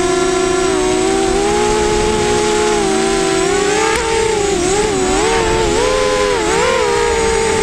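FPV racing quadcopter's electric motors and propellers whining, several close pitches at once. The pitch holds steady at first, then swings quickly up and down from about halfway through as the throttle changes.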